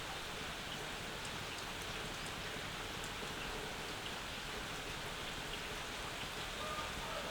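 Steady rain falling, an even hiss with scattered drips. Near the end a drawn-out steady tone starts up over the rain.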